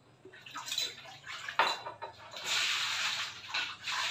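Water splashing on and off, with a single sharp knock about one and a half seconds in.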